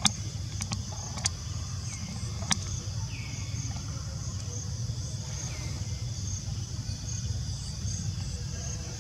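Outdoor ambience: a steady low rumble under a high, steady insect drone, with a few sharp clicks in the first three seconds and a short call falling in pitch, repeated every second or two.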